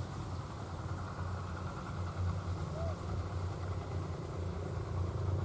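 Engine of a crawler-track rice-hauling tractor running steadily, a low even drone.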